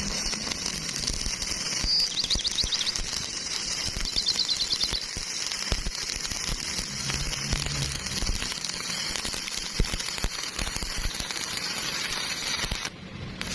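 Electric arc welding: the welding arc crackling and sizzling steadily, with a break in the sound near the end.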